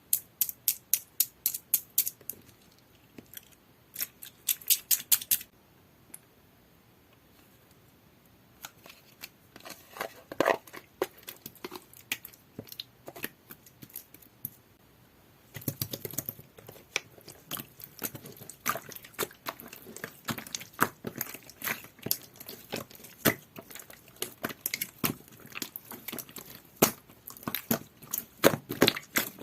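Slime being squeezed, pressed and stretched by hand, making runs of sharp wet clicks and pops several times a second. The clicking pauses briefly a few seconds in, then returns and grows busier about halfway through.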